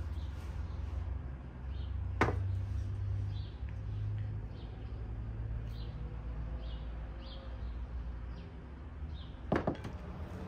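A steady low rumble with a small bird chirping repeatedly over it, and two sharp knocks, one about two seconds in and one near the end.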